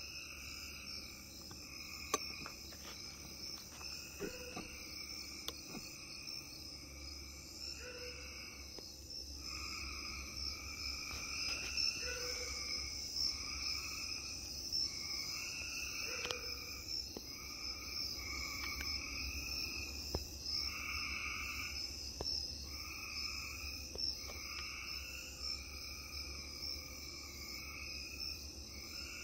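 Night chorus of insects trilling steadily and high, with repeated mid-pitched calls about a second long overlapping throughout.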